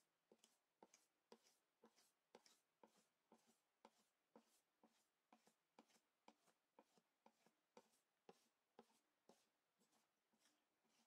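Faint clicking and scraping of a wire balloon whisk against a stainless steel bowl, about twice a second, as flour is whisked into a thick chiffon cake batter.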